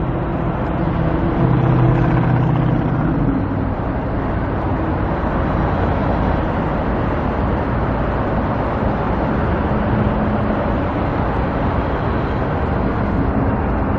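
Road traffic going by, a steady rush of passing cars, with an engine hum standing out in the first three seconds or so.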